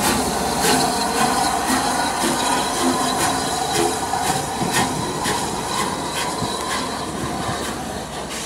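Rebuilt Bulleid Battle of Britain class steam locomotive 34052 Lord Dowding and its train moving slowly along the platform. Wheels click at a regular beat of one to two a second over a noisy running sound, with a steady squeal.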